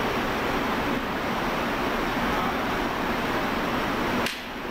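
Steady rushing background noise of a factory floor, an even hiss-like rush without distinct events, that dips suddenly near the end.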